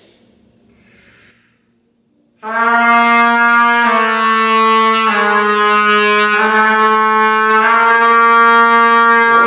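Trumpet playing a connected C–B–C note exercise: a long held note begins about two and a half seconds in, dips to a slightly lower note around the middle and returns to the first pitch without a break. The exercise is about starting the note with a full, steady sound and keeping the air even on the way back.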